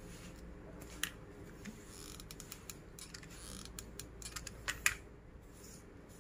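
Faint, scattered clicks and creaks of plastic drinking straws being handled and pressed into place while they are glued side by side. The sharpest pair of clicks comes near the end.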